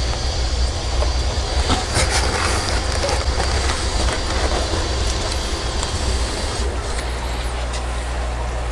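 Steady low hum and hiss of running equipment. About two seconds in there are a few light knocks and rustles as fish bags are handled in a styrofoam-lined shipping box.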